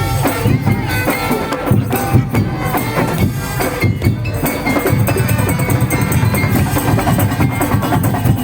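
Loud music with steady, busy percussion: wooden knocks, drums and jingles playing a continuous rhythm.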